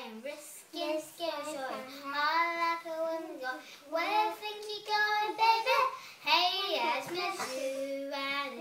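A young girl singing unaccompanied, with several held notes and short breaks between phrases.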